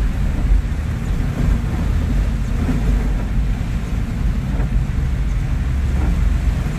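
Steady low rumble of a vehicle driving through heavy rain, heard from inside the cab, with rain and wind noise over it.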